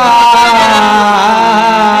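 A male Punjabi folk singer holds one long high note through a loudspeaker system, sliding slowly down in pitch, over a steady low instrumental drone.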